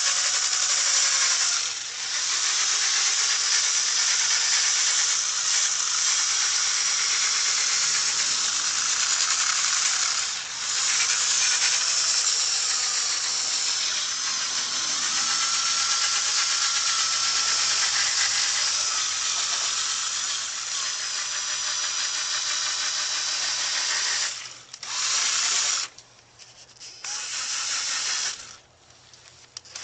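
A drill spinning an 800-grit sanding disc against a plastic headlight lens, giving a steady sanding hiss with a couple of brief let-ups. In the last few seconds it stops and starts several times.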